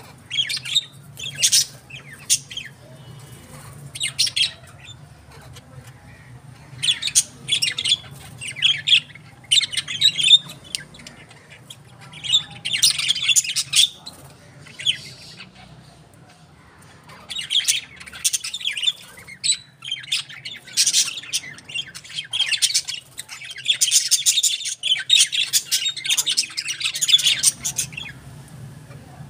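Birds chirping and squawking in repeated short bursts, about seven clusters with quiet gaps between them, over a steady low hum.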